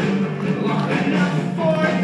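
Cast ensemble singing a rock musical number over instrumental accompaniment, with a sung note held near the end.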